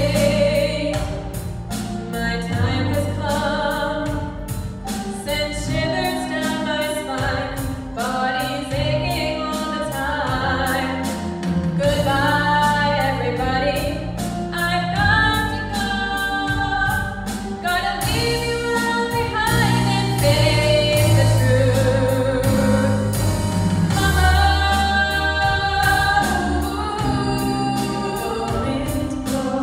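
Mixed choir singing a gospel-style song with band accompaniment, a low bass line changing notes every second or two beneath the voices.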